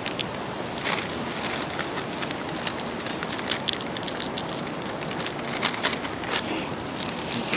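Cat crunching dry kibble: a quick, irregular run of crisp crackles over a steady hiss.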